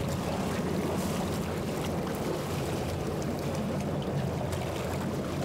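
Boat engine idling with a steady low hum, with water splashing and sloshing beside the hull as a hooked giant trevally is pulled up at the surface.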